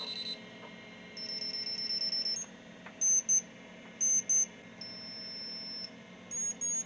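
A beeper logic probe sounding as its tip is touched to the pins of a powered-on Commodore 64's chips: held high tones alternating with pairs of short beeps at slightly different high pitches. The pitch shows the logic state on each pin, and a beeping, in-between tone means data activity on that line.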